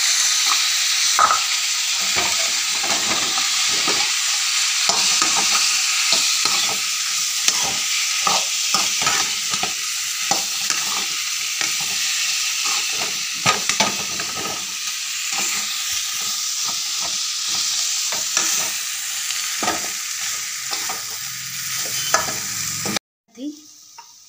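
Potatoes, tomatoes and spices frying in oil in a kadhai, sizzling steadily, while a perforated steel spatula stirs and scrapes against the pan in many quick strokes. Near the end the sizzling cuts off suddenly.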